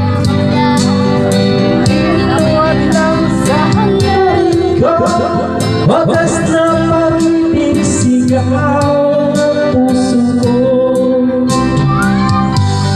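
A man singing into a handheld microphone over a backing track with a steady beat, karaoke-style.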